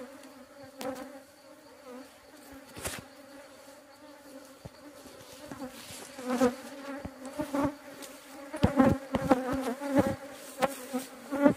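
Agitated honeybees buzzing around their hive: a steady hum, with single bees flying close past the microphone so their buzz swells and bends in pitch, more of them after about six seconds. A few sharp knocks in the second half.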